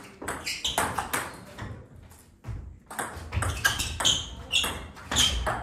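Table tennis ball clicking back and forth in a rally, striking the bats and bouncing on the table in quick, sharp pings, with a short break about two seconds in before the hits resume.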